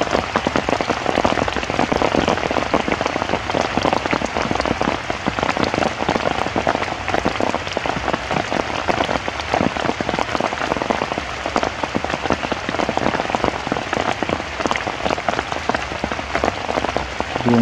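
Heavy rain falling, a dense, steady patter of drops hitting close by.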